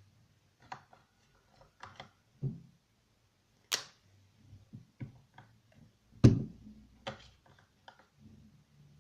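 Irregular clicks, taps and knocks of objects being handled on a hard surface, about a dozen over the stretch. A sharp click comes just under four seconds in, and the loudest, a heavier thump, a little past six seconds.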